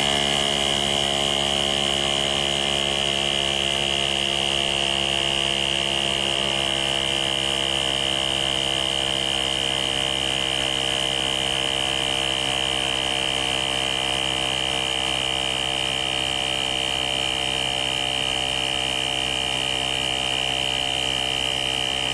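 Nature Hero cordless tire inflator's compressor running steadily with a high whine, pumping a tire up from 34.5 PSI toward its set pressure.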